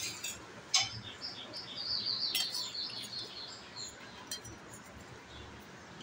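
A quick run of high, repeated chirps lasting about three seconds, from a young Indian palm squirrel. A sharp click about a second in is the loudest moment.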